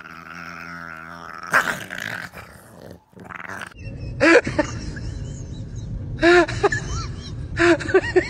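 Dogs growling in play. After a short break about three seconds in, two Shiba Inus spar with three bursts of short, high yips that rise and fall in pitch over a rough growl.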